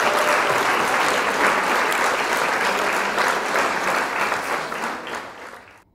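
Crowd applauding, the clapping fading out near the end.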